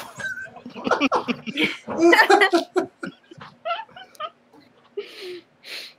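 People laughing and giggling in short, uneven bursts that fade out near the end.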